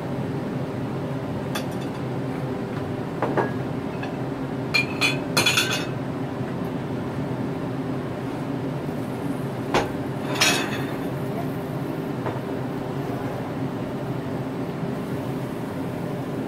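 Covered wok cooking on the stove: a steady hum with a few scattered metallic clinks, a cluster around five seconds in and another around ten seconds in.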